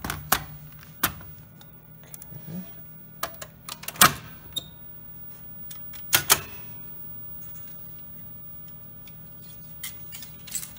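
Clicks and clunks from an EVR Teleplayer as a film cartridge is set onto its spindle and the control-panel buttons are pressed, the loudest click about four seconds in and two more close together about six seconds in. A faint steady hum runs underneath as the player's mechanism starts.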